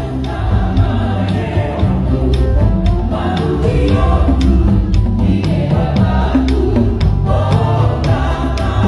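Many voices singing a hymn-like song together, backed by an electronic keyboard and the struck heads of Batak taganing tuned drums.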